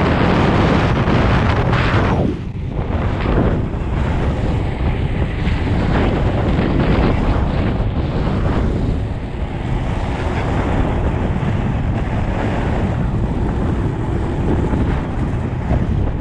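Heavy wind buffeting the microphone at high downhill speed on three-wheel inline skates, mixed with the rumble of the wheels rolling over asphalt, dipping briefly about two seconds in.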